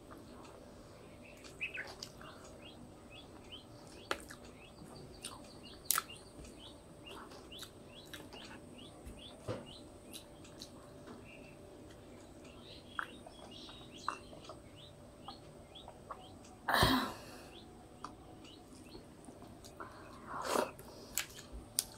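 Close-up eating by hand: wet mixing of rice in curry gravy and chewing, with many short clicks and chirps, which sound like small birds chirping in the background. A louder, noisy sound stands out about seventeen seconds in, and a shorter one near the end.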